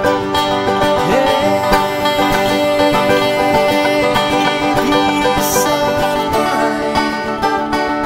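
Background music: a country-bluegrass style song with banjo and guitar.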